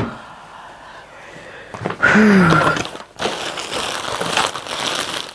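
Plastic packaging rustling and crinkling as a parcel is handled and opened, louder from about two seconds in, with a brief voiced hum about two seconds in.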